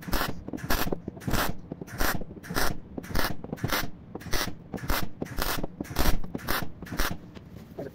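MIG welder stitch-welding a repair panel to a car wheel arch's thin body steel: a string of short crackling arc bursts, about two or three a second, each tack separated by a brief pause.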